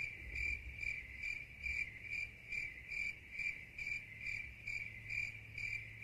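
Cricket chirping sound effect: one high chirp repeating evenly, a little over twice a second, over a faint low hum. It is the stock 'crickets' gag for an awkward silence.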